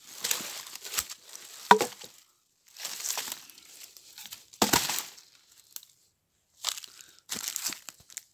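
Footsteps crunching through dry leaf litter and twigs in irregular bursts, with a few sharp snaps.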